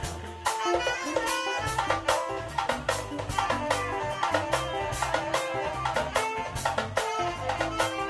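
A live band playing an upbeat groove: busy drums and percussion, a bass line that comes in about half a second in, and horn and melodic lines on top.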